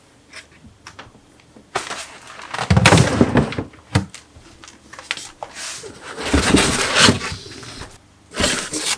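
Refrigerator being opened and a plastic crisper drawer slid out, with a dull thump about three seconds in, then rustling of cloth and paper produce bags as the vegetables inside are handled.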